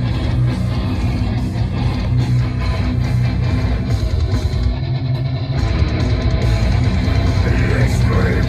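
Heavy rock band playing an instrumental passage, with distorted electric guitar and bass over a steady, dense low end.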